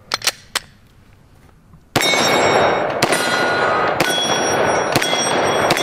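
A few clicks as a Glock 20 Gen 4 10mm pistol is handled, then five loud 10mm pistol shots about a second apart, with steel targets ringing after the hits and the shots echoing.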